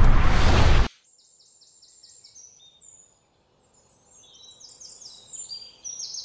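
A loud rushing rumble cuts off abruptly about a second in. Small birds then chirp and trill in quick repeated high notes, growing busier toward the end.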